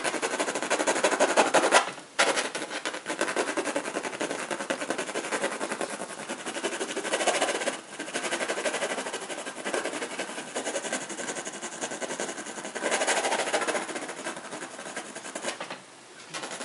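Graphite pencil shading rapidly on a drawing sheet: a dense scratching of quick back-and-forth strokes, broken by short pauses about two seconds in, near eight seconds and near the end.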